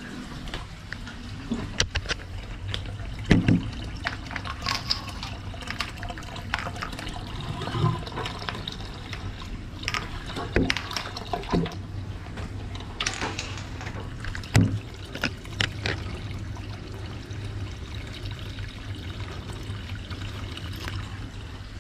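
Water sloshing and gurgling in an opened floor drain, with scattered knocks and clicks from handling the drain's perforated grate and trap, over a steady low hum.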